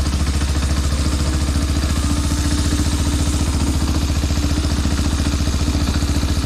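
A go-kart's small single-cylinder engine running steadily with a fast, even beat, holding the same speed throughout.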